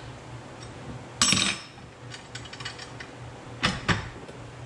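Hand-cranked bead roller working the end of a metal pipe: the crank and gears click, the pipe clanks and rings about a second in, and two sharp metal knocks come near the end as the pipe is freed from the rollers.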